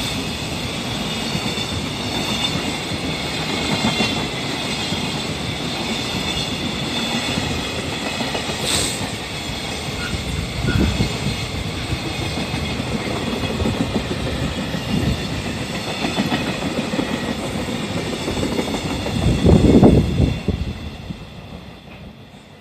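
Freight train wagons rolling past over the rails, a steady rumble with clickety-clack from the wheels. It swells loudest just before the end as the last cars go by, then quickly fades away.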